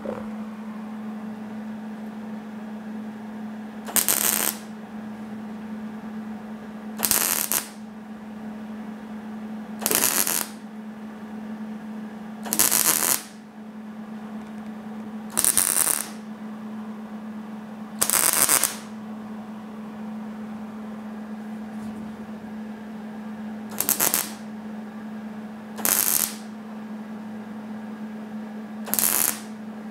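MIG welder laying short plug welds to fill slide hammer holes in thin, hammered steel door-skin sheet metal: nine separate bursts of welding, each half a second to a second long, a few seconds apart. A steady low hum runs underneath.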